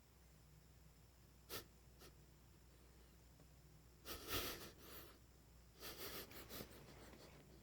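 Sleeping pit bull puppy making faint breathy snuffles and huffs while dreaming: one short one about one and a half seconds in, then two brief runs of them near the middle and later on.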